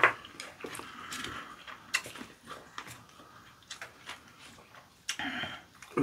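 Scattered light clicks and taps of chopsticks against dishes and styrofoam trays, with soft eating noises, while raw squid sashimi is picked up and wrapped in leafy greens.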